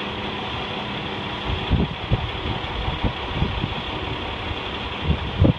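An engine idling steadily, a low even hum with a few faint steady tones in it. Irregular low knocks and bumps come and go through the second half.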